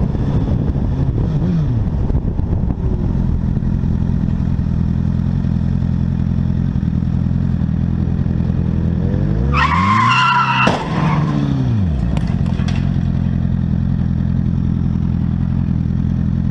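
A motorcycle engine runs steadily under the ride. About ten seconds in, tyres squeal for a second and a half in a hard skid, ending in a sharp bang, and a couple of clattering knocks follow: a vehicle skidding and crashing just ahead.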